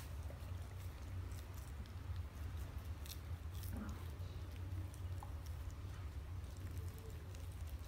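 A German Shepherd licking and gnawing at a frozen raw steak: soft, scattered wet licks and small clicks of teeth on the meat, over a low steady hum.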